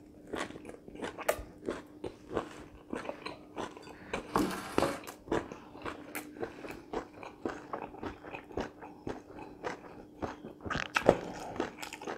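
Close-miked chewing of a mouthful of crispy pan-fried chicken tail wrapped in a lettuce leaf: a quick, irregular run of crunches, with a few louder bites about four seconds in and near the end.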